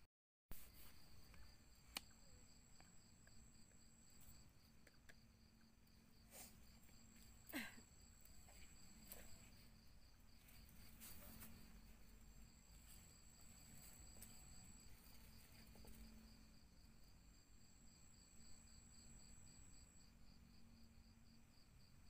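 Faint night insects, crickets, chirping steadily in an even pulsing rhythm, with a thinner, higher trill that comes and goes every few seconds. A few faint clicks and rustles as a person settles down to lie on the floor, the loudest about seven and a half seconds in.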